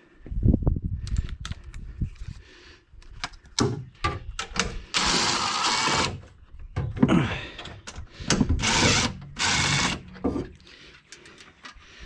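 Cordless impact driver run in several short bursts on the truck's suspension bolts, the longest about a second, about five seconds in, with knocks of tools and metal parts between.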